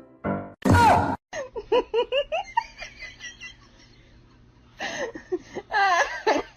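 A person laughing in quick repeated bursts, starting about a second and a half in, fading out, then breaking into laughter again near the end.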